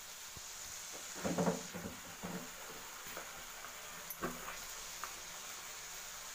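Goat intestine fry sizzling in an aluminium kadai, with a steel ladle stirring it and scraping and knocking against the pan, most busily about a second in and again briefly around four seconds in.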